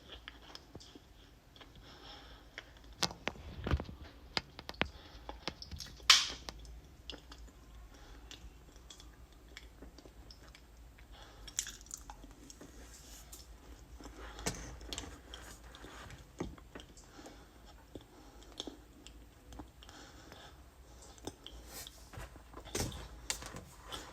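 A person chewing and biting into cornstarch that is still loose and powdery rather than packed, with scattered sharp clicks throughout; the loudest comes about six seconds in.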